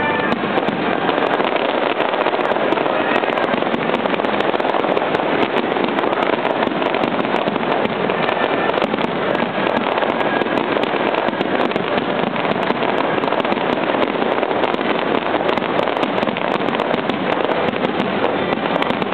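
Fireworks display: aerial shells bursting in rapid, unbroken succession, a dense continuous barrage of bangs and crackle with no pause between reports.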